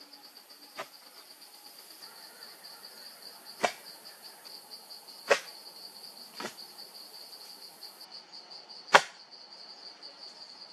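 A wooden pole rammed down into the earth to set a hut post: five thuds at uneven intervals, the one about nine seconds in the loudest. Steady pulsing insect chirring throughout.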